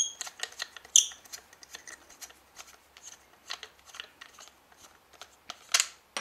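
Plastic GoPro housing and mount being handled and undone by hand: a string of light clicks and rattles, with sharp snaps right at the start, about a second in, and again near the end.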